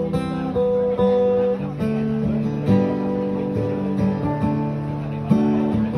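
Acoustic guitar strummed, ringing chords that change about once a second.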